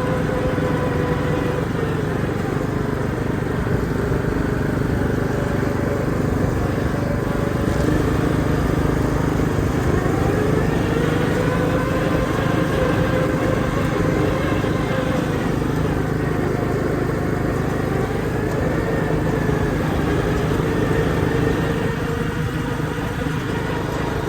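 Riding lawnmower engine running steadily as the mower is driven, its pitch rising and falling gently a few times as the speed changes.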